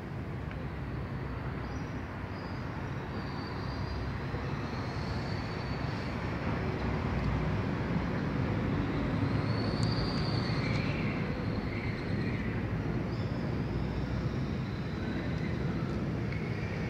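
Steady rumble of street traffic, growing a little louder partway through, with a few faint high whistling tones over it.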